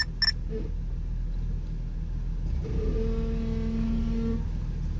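Jeep Wrangler engine and drivetrain rumbling low and steady, heard from inside the cabin while the Jeep creeps along a rocky trail, with a steady hum for about a second and a half in the middle.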